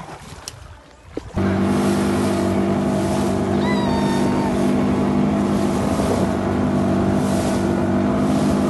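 Outboard motor on a wooden open boat running at speed, a steady engine drone with water and spray rushing along the hull. It starts abruptly about a second in, after a faint quiet stretch.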